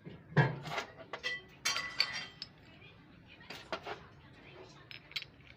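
Metal tools and parts clinking and clattering in about a dozen sharp strikes, some of them ringing, bunched in the first two and a half seconds with a few more later.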